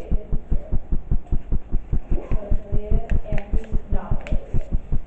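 A loud, steady low throbbing that pulses about five times a second.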